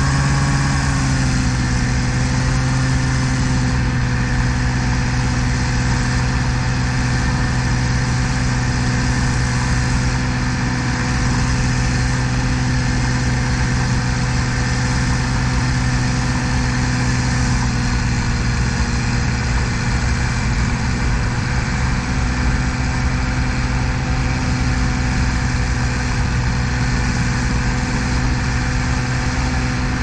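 Ultralight trike's 40-horsepower Japanese engine running steadily in flight, one even engine note with a steady rush of noise over it; the pitch eases down slightly about a second in, then holds.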